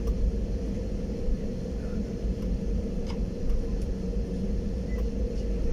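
Jet airliner taxiing, heard from inside the cabin: a steady low rumble with a constant engine hum, and a couple of faint ticks.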